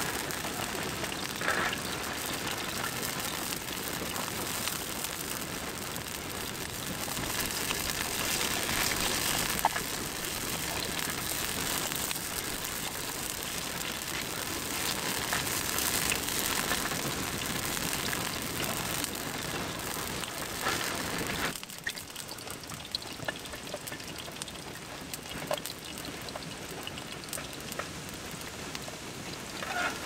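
Rain falling in a steady, even hiss. About two-thirds of the way through it cuts suddenly to a quieter, lighter patter with scattered single drop ticks.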